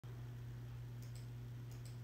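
A steady low hum with two quick pairs of faint clicks, about a second in and again near the end.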